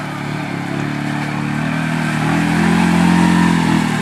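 Yamaha Kodiak 450 ATV's single-cylinder four-stroke engine running hard under load as it pushes into deep mud, getting louder about three seconds in.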